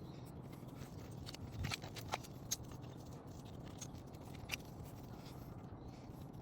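Scattered light clicks and scrapes of hand work on parts, over a faint low steady hum.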